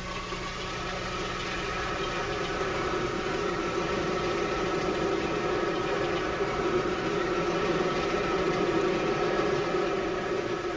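A steady, machine-like drone with a constant low hum, growing louder over the first few seconds and easing off near the end.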